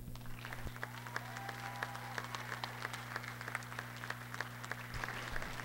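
Light applause from a crowd in a gymnasium, individual claps heard separately, over a steady low electrical hum.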